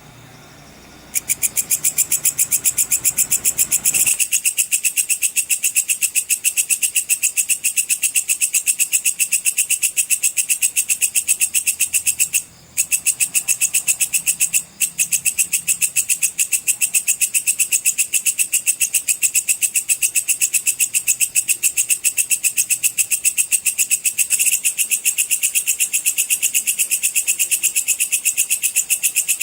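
Belalang pedang katydid (bush cricket) singing: a loud, high, fast train of even pulses that starts about a second in and breaks off twice, briefly, near the middle.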